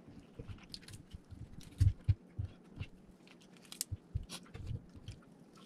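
Close-miked eating: biting and chewing into a piece of deep-fried quail, with scattered crisp crackles and clicks and a few dull low knocks, the strongest about two seconds in.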